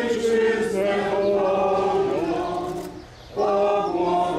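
A group of people singing a slow hymn together without accompaniment, in long held notes, with a brief pause for breath about three seconds in.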